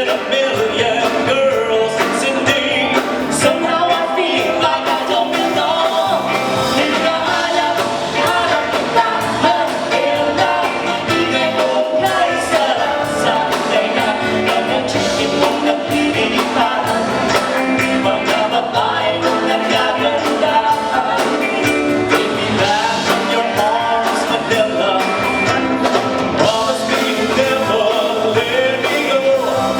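A live band playing a song, with singing over the instruments.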